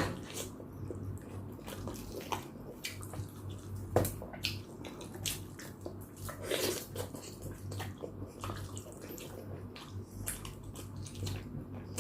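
Close-miked eating: slurping chicken soup broth and chewing, with many small wet smacking clicks.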